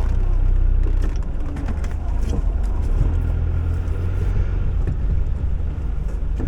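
Mitsubishi Pajero's engine running steadily, a low drone, with a few faint clicks and knocks.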